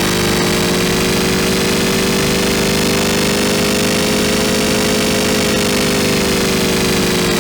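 Synthesized sci-fi engine sound from a Kilohearts Phase Plant wavetable synth, played as one held keyboard note. It is a gritty, distorted engine-like drone whose pitch drifts slightly up and then settles back.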